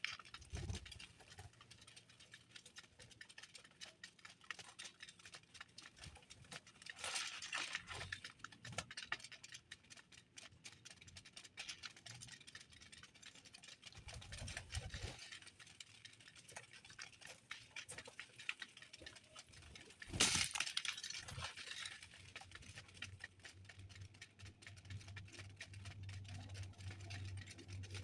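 Birds pecking and scratching at seed: a steady patter of faint clicks and ticks, with two louder rustling bursts about seven seconds in and about twenty seconds in.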